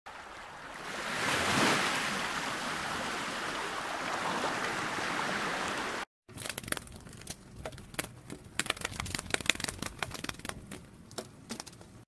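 Water lapping and washing on open water, swelling about a second and a half in. After a brief break about six seconds in, a run of irregular sharp clicks and ticks takes over.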